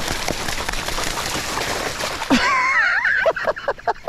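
A hooked cownose ray thrashing at the surface beside a kayak, splashing water hard for about two seconds. The splashing then dies down into a run of quick, even ticks near the end.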